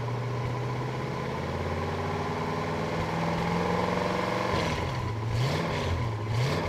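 Oldsmobile 442's 455 cubic-inch V8 idling with a steady, low exhaust note. Its speed lifts a little midway, then two quick throttle blips come near the end.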